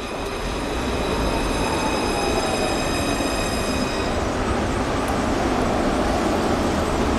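A tram rolling past on street tracks: a steady rumble that swells as it comes by. A whine slowly falls in pitch, and a set of high steady tones stops about four seconds in.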